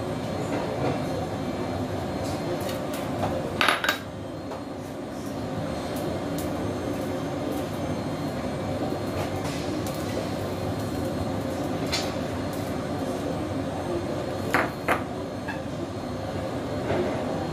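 Kitchen clatter: a few short clinks and knocks of dishes and utensils over a steady rumbling background. The loudest knock comes a little under four seconds in, and a pair comes about fifteen seconds in.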